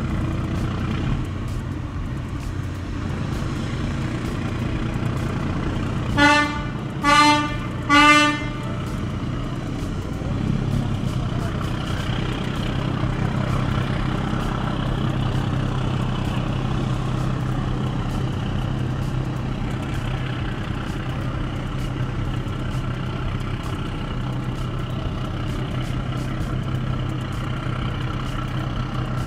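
Passenger ferry's horn giving three short blasts, each about half a second, about six seconds in, over the steady low hum of ship engines that grows a little louder from about ten seconds in as the ferry pulls away from the pier. Three short blasts is the signal that a vessel is operating astern propulsion, backing away.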